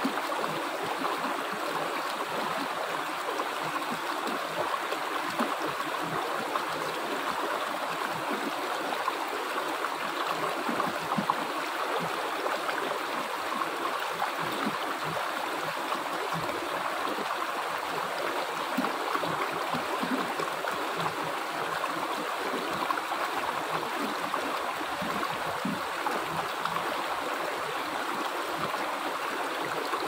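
Rocky mountain stream flowing over small cascades between boulders: a steady, even wash of running water that does not change.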